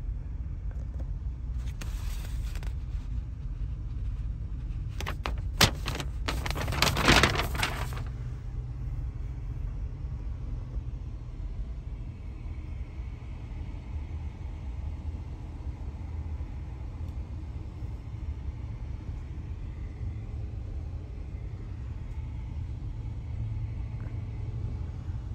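Steady low rumble inside a car's cabin. About two seconds in there is a brief rustle, then from about five to eight seconds a cluster of sharp clicks and rustling handling noise.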